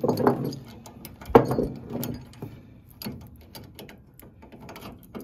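Steel tie-down chain rattling and clinking as it is handled and hooked up, with sharper metal clanks, the loudest at the start and another about a second and a half in.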